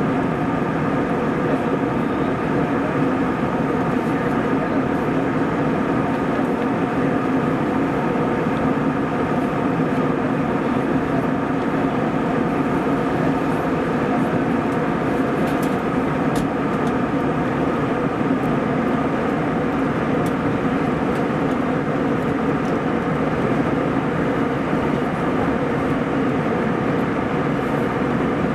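Steady cabin noise of an Airbus A320 airliner in flight: a constant engine drone and rush of air, with a few steady hum tones running through it.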